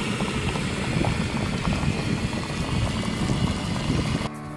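Eggs and a bagel sizzling on a griddle: a steady hiss with many small crackles, cutting off abruptly near the end.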